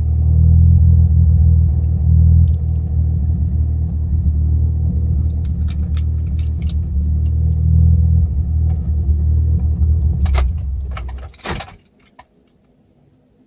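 Mitsubishi Lancer Evolution IX's turbocharged 2.0-litre four-cylinder idling steadily, which the owner calls a good idle. A few sharp clicks sound over it, and the engine is shut off about eleven and a half seconds in.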